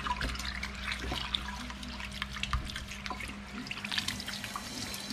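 Tap water running into a stainless steel sink, splashing and trickling unevenly as hands rinse the blood out of a gutted fish held under the stream.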